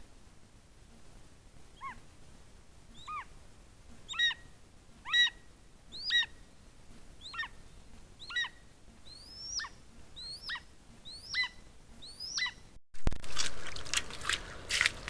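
A bird gives a series of about eleven short calls, each dropping in pitch, roughly one a second; the later calls start higher. After a cut near the end, the hooves of a moose wading in a shallow stream knock and splash.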